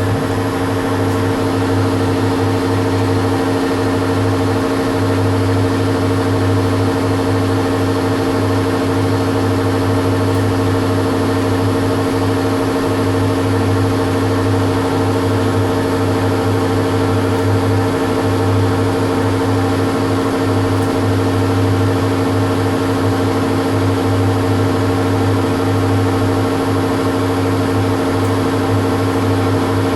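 Metal lathe running steadily under power, a constant motor and gear hum with a few held tones, while it turns a screw down from bar stock.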